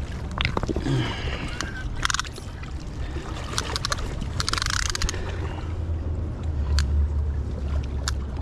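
Steady low rumble of wind on the microphone, with intermittent rustles and clicks as hands pull out a tape measure and lay it along a fish on the rocks.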